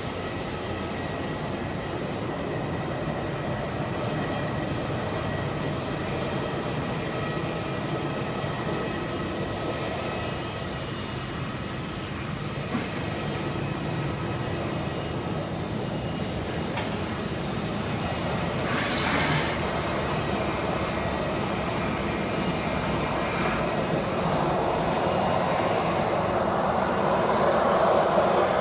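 Boeing 777-300ER's GE90-115B jet engines running with a steady whine over a broad rush of noise, growing louder near the end.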